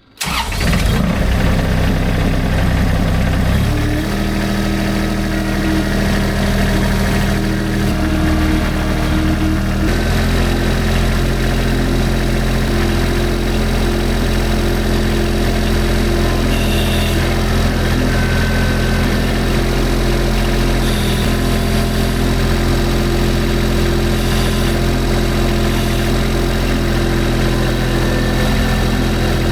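Kymron XTL 30 mini skid steer's engine cuts in suddenly and keeps running. Its speed steps up about four seconds in and again about ten seconds in, then it holds steady.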